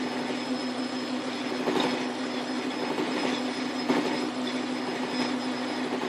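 Metal lathe running at its lowest speed while a cutoff tool parts off a slotted scrap collet: an interrupted cut. A steady motor hum under continuous rough cutting noise, with sharp clicks about two and four seconds in.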